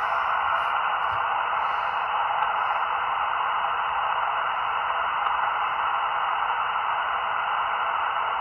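Shortwave radio receiver hissing steadily with band noise in upper-sideband mode on the 20-metre band, with no voice coming through. The band is quiet between transmissions, and the S-meter reads no signal.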